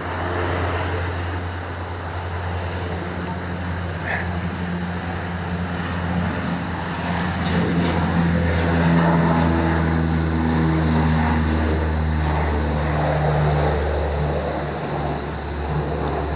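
Firefighting aircraft engines droning steadily, growing louder over the first half and then holding.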